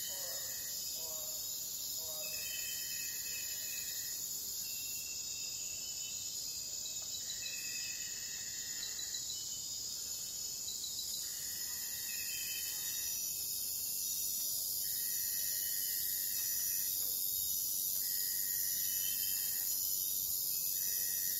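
Amazon rainforest night chorus of crickets and other insects: a steady high-pitched trill underneath, with a call repeating in long notes of about a second and a half, roughly every two to three seconds, and shorter chirps above it.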